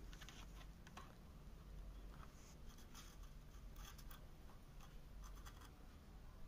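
Near silence: low room hum with faint, scattered scratches and ticks.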